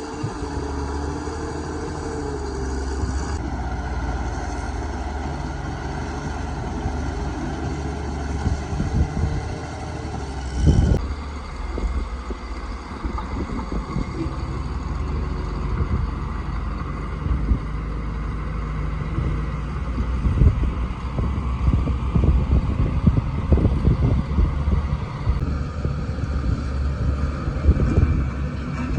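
Caterpillar crawler bulldozer's diesel engine running steadily under load while pushing rock, its note shifting a few times. A heavy knock comes about eleven seconds in, followed by frequent irregular clanks and knocks from the tracks and rock.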